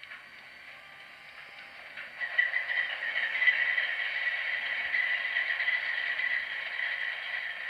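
HO scale model train running on its track with a steady rattle and clatter, getting louder about two seconds in as it comes closer.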